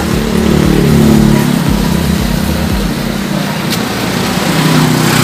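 Engine of a motor vehicle running close by, its pitch rising and falling, loudest about a second in and swelling again near the end.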